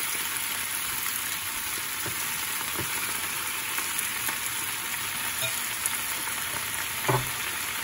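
Pea shoots sizzling as they stir-fry in hot rendered bacon fat in a frying pan, a steady hiss, with a few light taps and a brief knock about seven seconds in.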